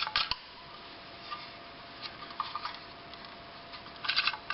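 Handling noise from a sewing machine's foot-pedal motor controller being picked up and turned over: a quick run of light clicks and rattles at the start and again near the end, with soft rubbing and a few faint knocks between.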